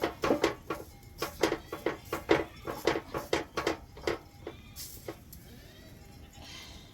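A quick run of sharp knocks, about three to four a second, stopping about four seconds in.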